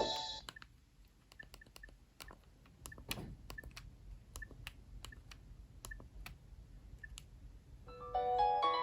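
Soft clicks and taps, about one or two a second, from the Nokia 7710 being operated to select the next ringtone, some followed by a faint short tone. A ringtone cuts off right at the start, and the next melodic ringtone begins about a second before the end.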